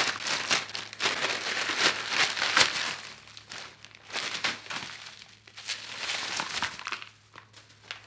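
Plastic mailer bag crinkling as it is pulled open by hand and the packaging inside is handled. The crinkling is densest for the first three seconds, then comes in shorter bursts and dies away near the end.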